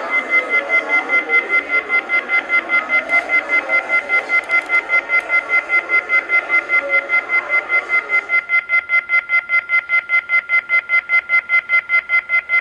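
Telephone receiver-off-hook tone: a shrill electronic beep pulsing fast, about five times a second, the warning that a phone has been left off the hook. A murmur of other sound underneath stops about eight seconds in.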